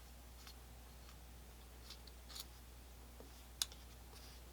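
A few faint, light clicks and taps of small metal revolver parts being handled as the hammer pivot screw comes out, one sharper click about three and a half seconds in, over a low steady hum.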